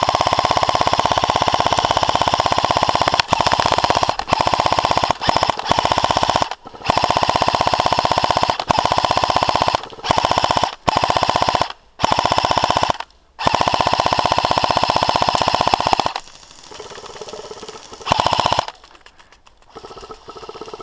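Airsoft guns firing on full auto: long strings of rapid shots broken by short pauses, stopping about 16 seconds in, then one more short burst near the end.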